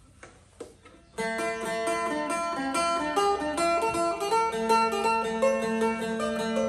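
Amplified acoustic-electric Thai phin (three-string lute) being played with a pick. About a second in, a quick run of plucked notes starts over a held, ringing drone note.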